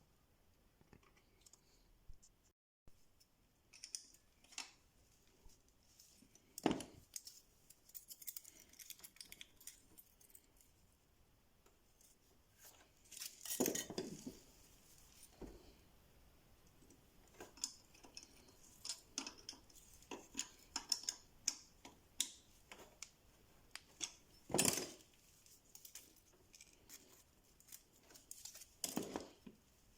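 Irregular metallic clicks, clinks and knocks of hand tools and small engine parts being handled, with a few louder knocks spread through.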